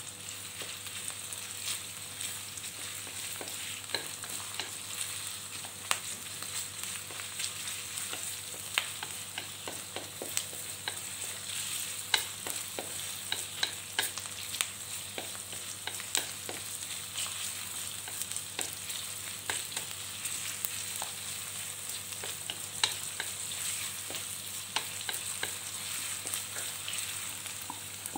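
Sliced onion sizzling in hot oil in a metal wok, a steady hiss. A wooden spatula stirs it, scraping and tapping the pan in scattered short clicks.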